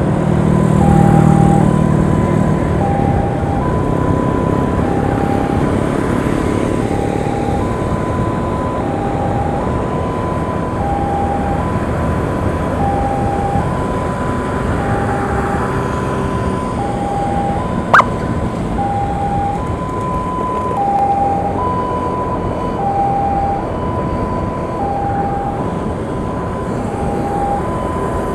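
Two-tone emergency siren alternating evenly between a high and a low note, about one note a second, over steady road and wind noise from a moving motorcycle. A single sharp click comes about eighteen seconds in.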